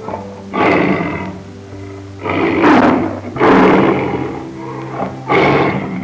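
Four loud, harsh animal calls, each about a second long, over background music with steady held notes.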